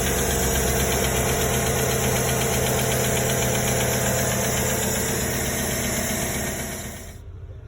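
2009 Chevy Silverado engine idling with a steady, rhythmic ticking from a faulty valve lifter, the cause of its cylinder 4 misfire. The sound drops away sharply near the end.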